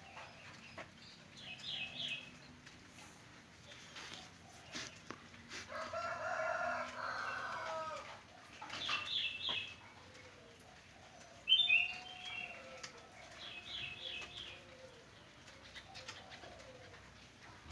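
A rooster crowing once, a drawn-out call of about two seconds, about six seconds in. Around it, a small bird gives short groups of three or four quick, high chirps four times.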